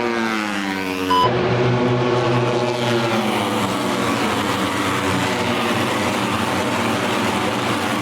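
Motorcycle engine running, falling in pitch as it slows over the first second, then cutting abruptly to steady running that drifts slightly up and down in pitch.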